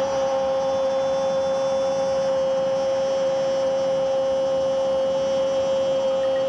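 Football commentator's drawn-out goal cry: one long shouted 'gol' held on a single steady note.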